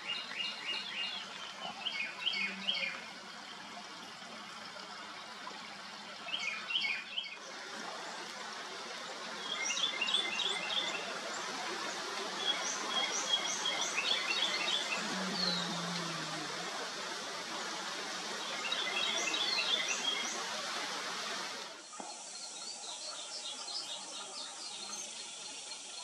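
Lesser goldfinches calling: short bursts of quick, high chirping notes, now and then a thin falling note, over a steady background hiss. The background changes abruptly twice where the recording cuts.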